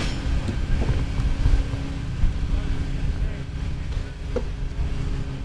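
Wind rumbling on the microphone over a steady low motor hum.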